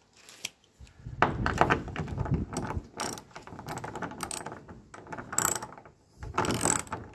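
Socket ratchet wrench clicking in rapid runs as its pawl works back and forth, tightening the nut onto a coach bolt through a timber door brace. The clicking comes in several short bursts with brief pauses between strokes, starting about a second in.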